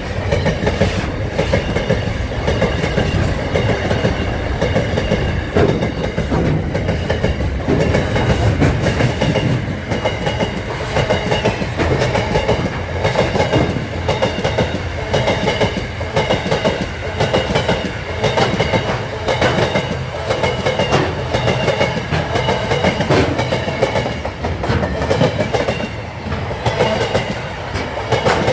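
Container freight train rolling past at close range: steady wheel-on-rail noise with repeated clacks as the wagons' bogies cross the rail joints.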